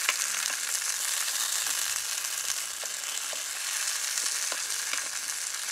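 Sausages sizzling as they fry in a hot aluminium mess tin, with a few light clicks of a utensil turning them in the pan.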